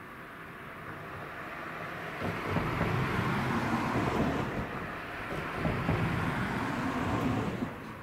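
Vehicle noise: a rushing sound that swells about two seconds in and drops away near the end, like traffic passing by.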